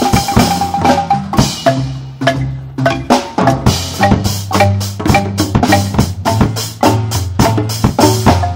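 Marimba ensemble playing a fast, rhythmic piece: several wooden marimbas with tube resonators, low notes underneath quick high runs, backed by a djembe and a drum kit.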